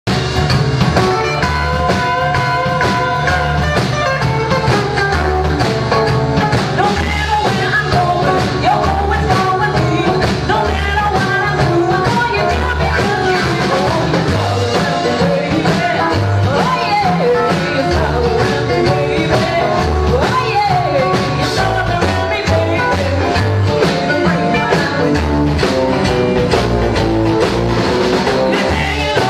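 Live 1950s-style rock and roll band playing at full volume: a female voice singing over hollow-body electric guitar, upright double bass, piano and drums, with a steady beat and a walking bass line.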